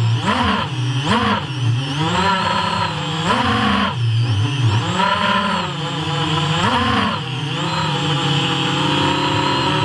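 FPV quadcopter's brushless motors and propellers whining, the pitch swooping up and down repeatedly with throttle changes and holding steadier near the end.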